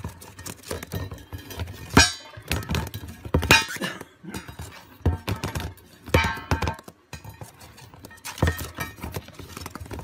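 A shallow dish knocking and clattering against the cardboard floor of a box, several separate thunks at uneven intervals.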